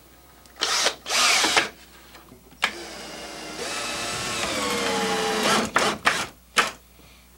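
Cordless drill driving 3-inch drywall screws into wooden 2x4 framing: two short runs, then a longer run of about three seconds with the motor note dropping as the screw sinks in, and a few quick blips of the trigger near the end.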